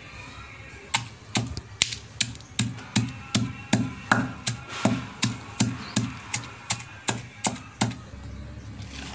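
A pestle pounding a wet, coarse masala of green chillies, garlic, ginger and whole spices in a stone mortar: steady thuds at about two to three a second, starting about a second in and stopping shortly before the end.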